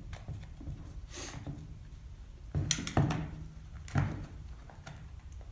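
Handling noise from the parts of a disassembled cordless drill: a few separate knocks and clicks, with a short scrape about a second in.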